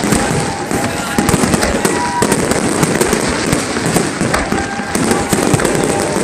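Fireworks display: a loud, dense, continuous barrage of bangs and crackles.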